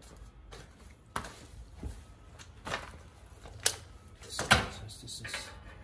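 Metal sockets and lug nuts being set down and handled on a shop floor mat: about five sharp knocks and clanks with small rattles between them, the loudest a little past the middle.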